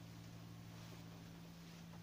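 Faint steady low hum of a wall-mounted Bulex condensing gas boiler running, over faint room hiss.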